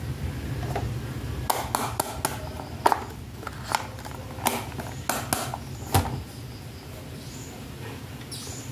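Hard plastic toy handbag clicking and tapping as it is handled and set down on a tabletop: a quick run of about ten sharp clicks over a few seconds, then quieter.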